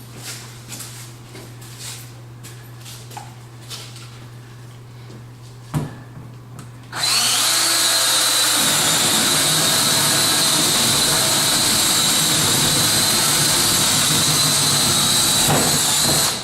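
Light handling knocks and one sharp knock, then a power drill runs steadily with a high whine for about nine seconds, boring a large hole through the back panel of a bathroom vanity cabinet from the inside, and stops suddenly near the end.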